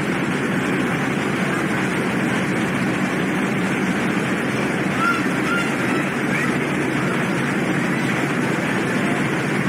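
A car ferry's engines and machinery running, a steady unbroken noise as heard on its open deck.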